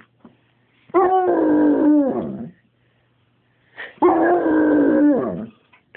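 Weimaraner howling: two drawn-out howls of about a second and a half each, one near the start and one in the middle. Each holds a steady pitch and then drops away at the end. He is howling to be fed.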